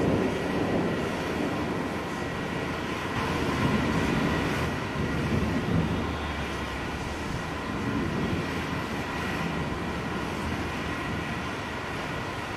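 Distant thunder rumbling in long rolling swells, loudest at the start, again about four to six seconds in and once more about eight seconds in.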